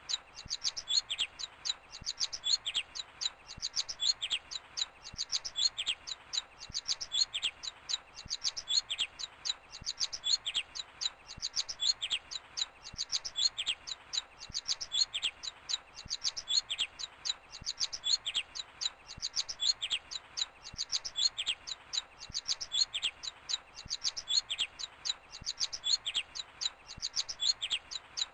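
Birds chirping: quick runs of high, sharp chirps in short clusters, repeating roughly once a second.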